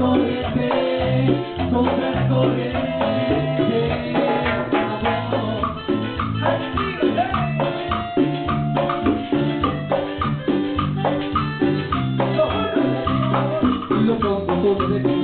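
A live band playing a Latin dance tune without vocals: steady percussion under held melody notes.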